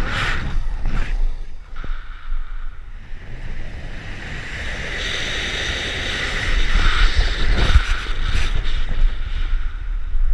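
Wind rushing over a hand-held camera's microphone as a bungee jumper falls, a steady rumbling buffet that grows louder and rougher in the second half.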